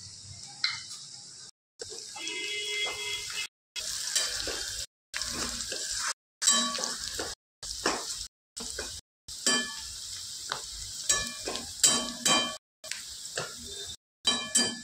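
Chopped onion and green chilli sizzling in oil in a non-stick kadhai, with a metal slotted spatula stirring and clicking against the pan. The sound drops out for short moments several times.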